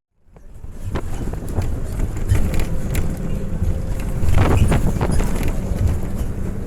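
Intercity bus travelling on the road: a steady low engine and road rumble with wind noise, fading in at the start. A brief cluster of rattles comes about four seconds in.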